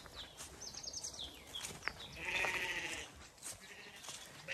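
A Zwartbles lamb bleats once, a wavering call of under a second about two seconds in.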